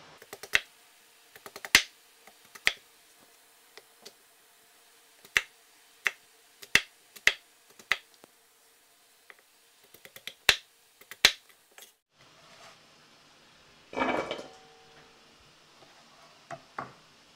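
Chinese cleaver cutting peeled taro into cubes on a plastic cutting board: about a dozen sharp single chops knocking against the board at uneven gaps. Near the end there is a short scraping noise.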